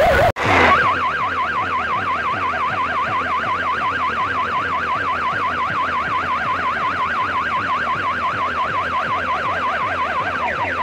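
Electronic siren-style warble played loud through a towering stack of horn loudspeakers and speaker cabinets. The audio cuts out briefly at the start, and the warble comes back higher and fast. Near the end it switches to repeated rising sweeps.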